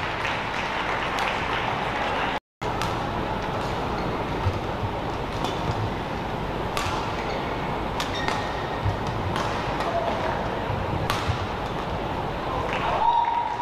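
Badminton rally: sharp cracks of rackets striking the shuttlecock every second or so, with a few short squeaks of shoes on the court mat, over a steady hall hubbub. The sound cuts out completely for a moment about two and a half seconds in.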